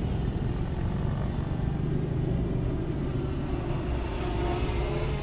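6-inch FPV quadcopter in flight, its brushless motors and propellers making a steady drone under a low rumble, the pitch wavering slightly.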